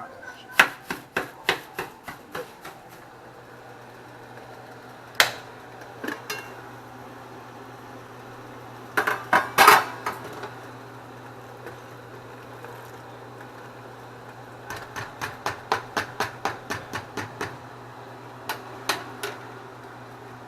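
Kitchen utensils and dishes knocking and clinking in quick runs of sharp clicks, the loudest cluster about halfway through and an even run of about four taps a second later on. A steady low hum runs underneath.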